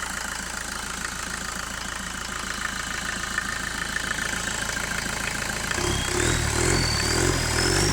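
1992 VW Passat B3 1.9 TD four-cylinder turbodiesel idling steadily, then picking up revs about six seconds in as the original turbocharger starts to whistle, the whistle climbing in pitch.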